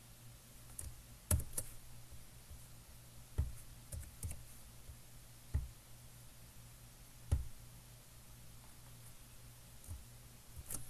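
About ten separate clicks from a computer mouse and keyboard, scattered unevenly with a couple close together, over a faint steady low hum.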